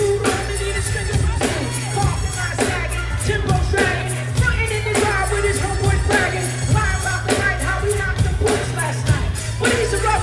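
Live hip hop through a concert PA: rapped vocals over a heavy, bass-driven beat with a steady rhythm.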